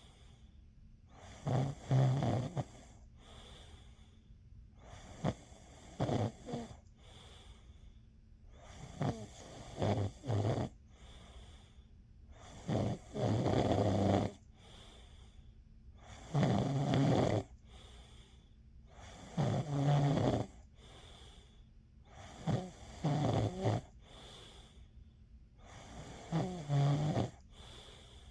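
A person snoring in a steady sleep rhythm: about eight rough snores, each roughly a second long and some broken into two or three pulses, coming every three to four seconds.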